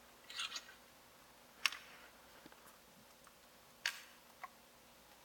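Small hand tools clicking and tapping against an iPad's frame and LCD as the screen is unscrewed and lifted free: a brief scrape near the start, then two sharp clicks about two seconds apart and a smaller tick soon after the second.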